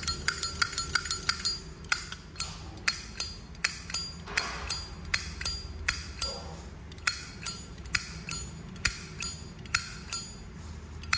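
Polished-chrome Zippo lighter being flicked open and snapped shut over and over, each stroke a sharp click with a short metallic ring, quicker in the first second or so. The ring is light and warm rather than loud.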